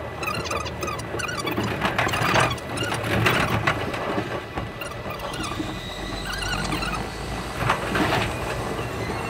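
Running sound inside the Thunderbird limited express train, played back at 5.5 times speed: a steady low rumble overlaid with many short, wavering high squeaks, with a few louder swells.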